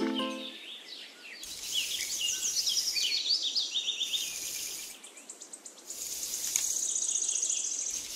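Birds chirping and trilling: quick high-pitched calls in stretches that start and stop abruptly, with a rapid trill near the end.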